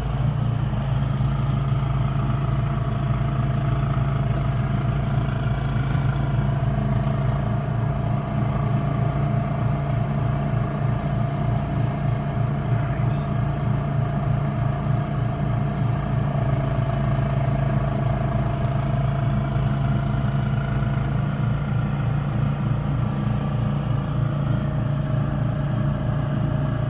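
A large engine running steadily at constant speed, from the tree-trimming crew's heavy equipment, with a fainter wavering whine above its low drone.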